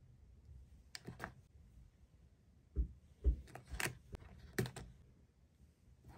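Plastic pens and a mechanical pencil clicking and tapping together as they are handled over a fabric pencil case: a handful of separate light clicks, with two louder dull knocks about three seconds in.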